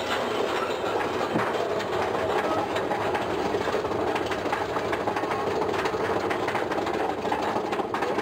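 Mine-train roller coaster climbing a lift hill, its lift chain and track giving a fast, steady clattering rattle.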